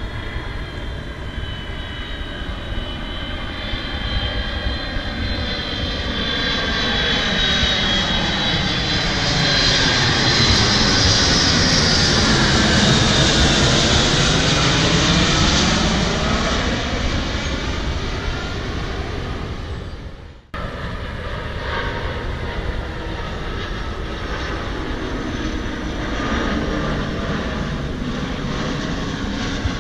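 Jet airliner on approach to land flying overhead: turbofan whine and rumble growing louder to a peak about halfway through, then fading. A sudden cut a little later, after which another aircraft's engine is heard more faintly.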